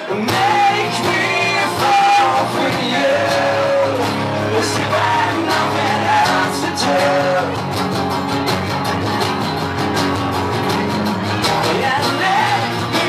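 Live rock band playing a song on acoustic and electric guitars, with a steady beat and voices singing.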